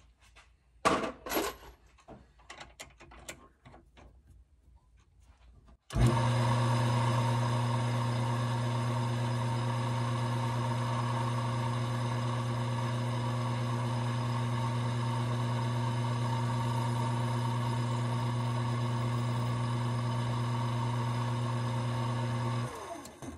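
Small metal lathe motor running steadily while a hand-held neck turner skims the neck of a brass rifle case spinning in the chuck. The motor starts suddenly about six seconds in and winds down near the end. Before it starts there are a few light clicks and taps as the case is set in the holder.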